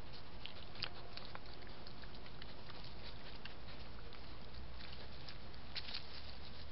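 Scattered faint crackles and ticks of an animal moving through leaf litter close to a trail camera, over the camera microphone's steady hiss and low hum. The ticks bunch together about a second in and again near the end.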